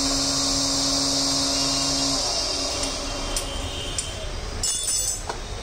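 Electric blender motor running steadily with a high whine, then switched off about two seconds in and spinning down; a few light clinks and knocks follow.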